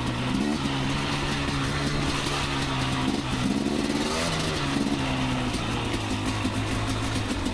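Two-stroke dirt bike engine running at a fairly steady, moderate speed while riding, its note rising a little about halfway through and then easing back, over a steady hiss.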